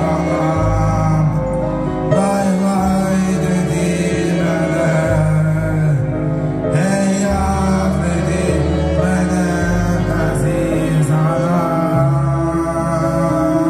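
A male voice singing a slow song into a microphone over a backing track, whose bass moves to a new held note every one to two seconds.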